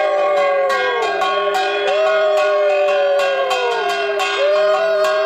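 Conch shells blown in long sustained notes whose pitch swoops up and slowly sinks about every two and a half seconds, over rapid ringing of a hand bell, as in puja worship.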